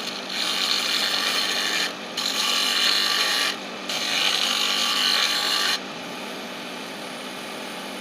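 A woodturning lathe with a tool cutting a spinning piece of wood: a loud, rasping cutting noise that breaks off briefly twice, then drops about two-thirds of the way through to a quieter, steady sound.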